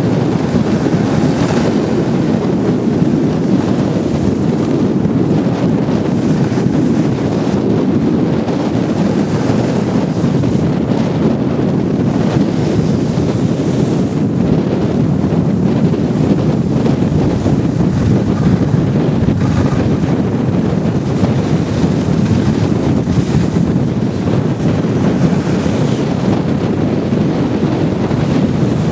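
Loud, steady rush of wind buffeting the microphone of a camera moving fast down a groomed ski slope, with the hiss of sliding over packed snow beneath.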